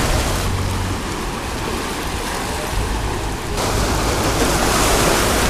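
Ocean surf washing onto the shore, with wind rumbling on the microphone. About three and a half seconds in, the sound changes abruptly and the surf gets a little louder.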